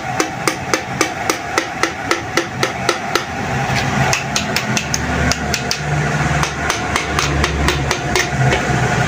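A hammer tapping quickly and evenly, about four taps a second, as a piston is driven through a ring compressor into a cylinder bore of the Mitsubishi Adventure engine block. A low engine rumble comes in about halfway through.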